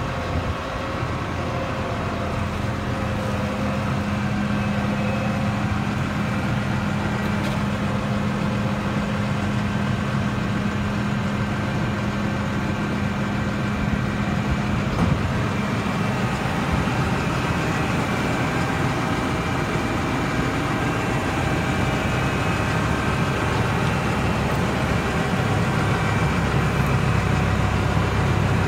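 New Holland T7.315 tractor's six-cylinder diesel engine idling steadily, growing a little louder and deeper near the end.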